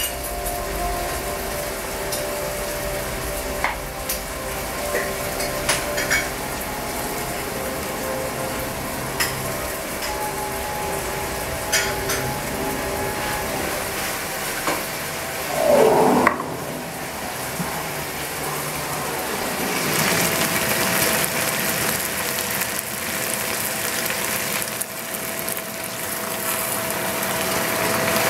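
Ground meat and tomatoes sizzling steadily in a steel pot on the stove, with scattered light clicks of utensils. A brief scraping sound comes a little past halfway, and the sizzle grows louder and brighter about two-thirds of the way in.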